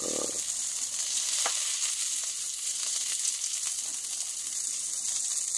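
A sausage sizzling steadily on the hot steel top of a small wood-burning stove, with a few faint ticks.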